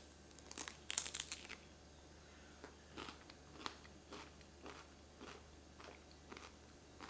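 A person biting into a piece of raw cucumber coated in powdered sugar: a crisp crunch about a second in, then steady chewing at about two chews a second.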